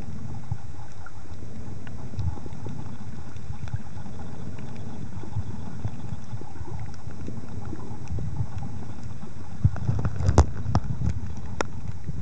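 Muffled underwater rumble picked up by a compact camera sealed in a plastic-bag housing while snorkelling. A handful of sharp clicks and knocks come about ten seconds in.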